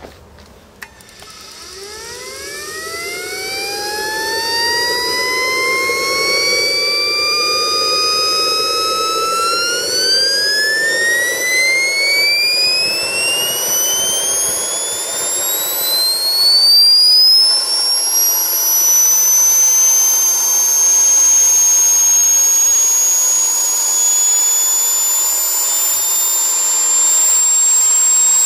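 Home-built 66 mm model jet turbine starting from rest: after a click, a whine starts low and rises steadily, with a rushing sound under it. It climbs faster about ten seconds in and settles into a steady high-pitched whine as the turbine comes up to speed.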